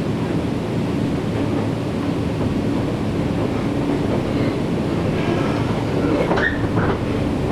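Nankai 7100-series electric train running, heard from inside the passenger car: a steady rumble of wheels on rail with a humming tone, and a short squeal near the end.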